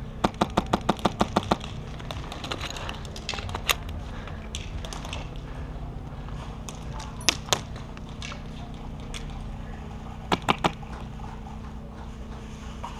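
Airsoft rifles firing: a rapid string of about a dozen shots in the first second and a half, then scattered single shots and a quick run of three near ten seconds in.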